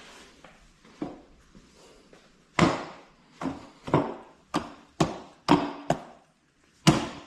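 A run of about eight sharp knocks, irregularly spaced roughly half a second apart, starting about two and a half seconds in, each with a short ringing tail: work on the ATV's wheel mounting.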